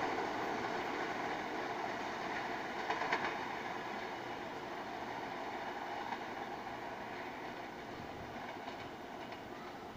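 New York City subway train running away along the far track, its wheels rumbling on the rails and fading steadily as it recedes. There is a short cluster of clacks over rail joints about three seconds in.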